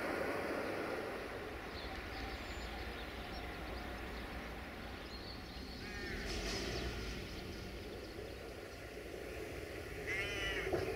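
Crows cawing in short bursts, once about six seconds in and again near the end, over a steady low outdoor rumble.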